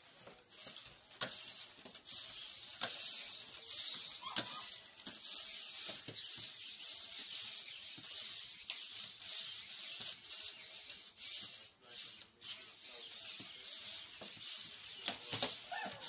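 Toy robot dogs' motors and gears whirring and grinding as they walk, with scattered mechanical clicks and a brief electronic tone about four seconds in.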